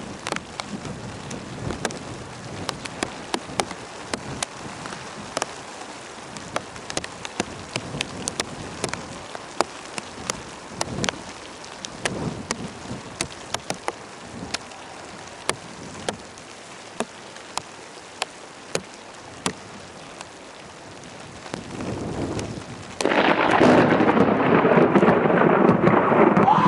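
Steady rain with many single drops tapping close by. Near the end a loud roll of thunder comes in, swelling and then holding loud.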